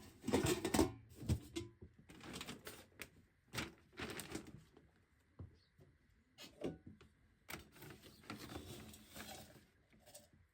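Dry chicken feed clattering against PVC feed tubes in a series of short, irregular rattling bursts and clicks.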